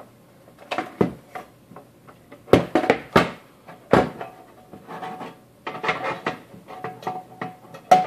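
Casing of a Cisco AP541N access point being slid back onto the unit and pressed into place by hand: a series of knocks and clicks, then a stretch of scraping rubs.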